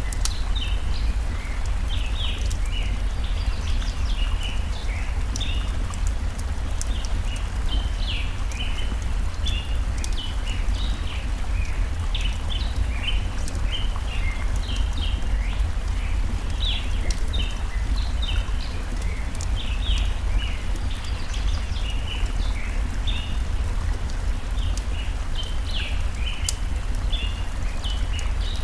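Forest stream running as a steady rush, with small birds chirping in quick short high notes throughout and the odd snap of a crackling campfire.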